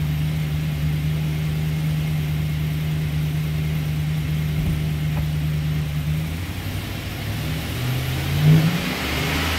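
A 2008 GMC Sierra 1500's 4.3-litre V6 idles steadily, heard from inside the cab. In the last few seconds it is revved, and its pitch rises with a peak about eight and a half seconds in.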